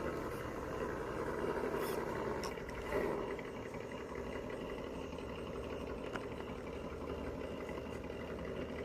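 Electric motor and geared drivetrain of an RC rock crawler whirring steadily as it creeps slowly down a slope, with a few light clicks.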